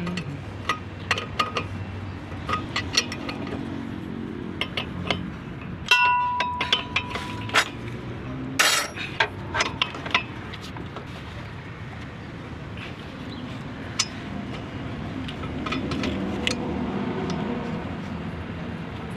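Metal tools and parts clinking and tapping during repair work on a truck's DDU unit, with one struck metal piece ringing clearly for over a second about six seconds in. A steady low hum runs underneath.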